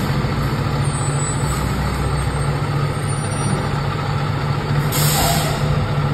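Heavy fire rescue truck's diesel engine running steadily at low revs. About five seconds in, the air brakes give a short hiss of released air.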